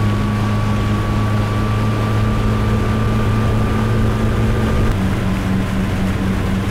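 Motorboat engine running steadily at towing speed over a rush of wind and water, its note dropping slightly about five seconds in.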